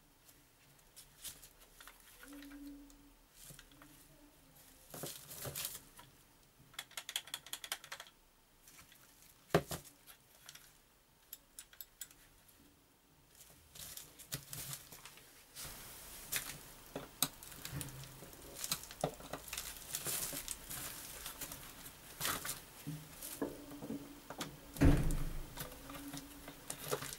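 Gloved hands handling a plastic-cased РМГ-1 tape head demagnetizer and its coiled cord on a crinkly plastic sheet: scattered crinkling and rustling with small clicks and knocks. There is a sharp knock about ten seconds in and the loudest knock near the end.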